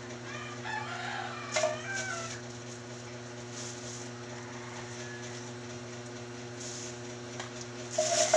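A rooster crowing once, wavering, for about two seconds near the start, over a steady low hum. A loud rustling clatter comes near the end.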